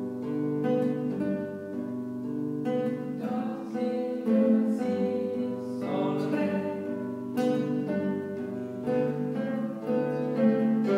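Nylon-string classical guitar playing a chord progression, its plucked notes ringing on in an even rhythm.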